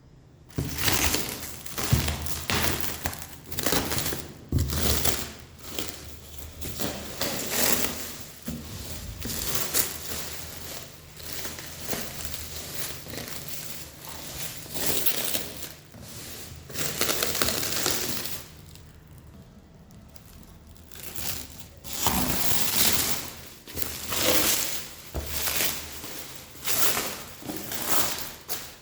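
Packaging being unwrapped and handled: irregular crinkling and rustling, with a short lull about two-thirds of the way through.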